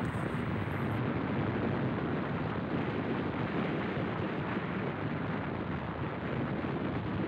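Yamaha RX-King two-stroke motorcycle being ridden at speed: a steady rush of wind on the microphone mixed with engine and road noise.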